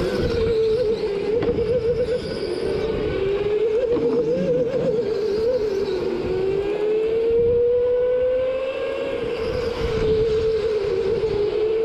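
Go-kart running flat out, heard from the driver's seat: its motor's pitch wavers up and down with the throttle through turns and climbs steadily for a few seconds about halfway through, over a rough rumble from the chassis and tyres.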